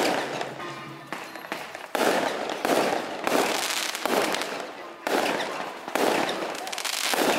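Fireworks going off overhead: dense rapid crackling and popping that surges up sharply about two seconds in, again around five and six seconds in, and once more near the end.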